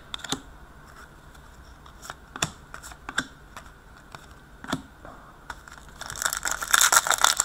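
Trading cards being handled: a few light clicks and taps as the cards are flipped and shuffled. About six seconds in, a dense crinkling of a pack wrapper being handled begins.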